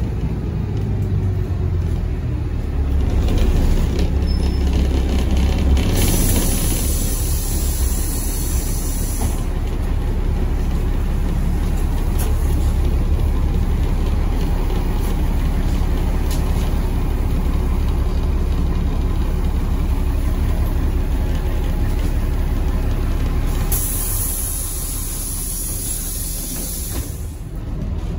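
GolAZ-AKA-5225 city bus running, heard from inside the cabin: a steady low engine and road rumble. About six seconds in, and again near the end, there is a hiss of released compressed air from the bus's air system, each lasting about three seconds.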